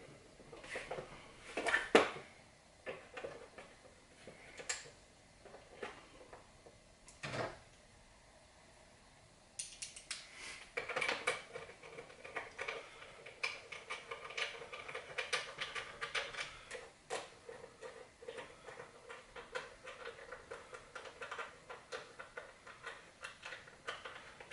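A small wrench working the bolts of a Predator 212cc engine's plastic shroud: scattered clicks and knocks, then from about ten seconds in a fast, steady run of light metallic clicks as the bolts are run down.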